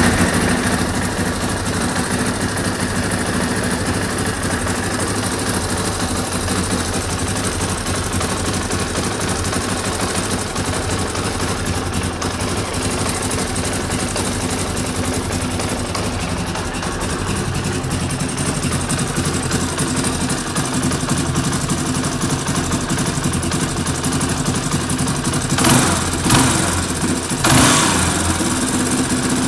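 2004 Yamaha YFM 350 R quad's single-cylinder engine idling steadily, with three short throttle blips near the end.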